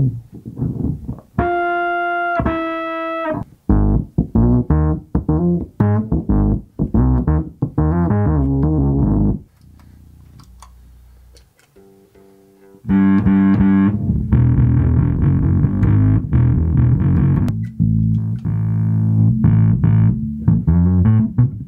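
Electric bass played through a fuzz pedal and bass amp: two long held high notes, then a run of quick, thick fuzzed notes. After a pause of about three seconds in the middle, dense fast fuzzed riffing starts up again.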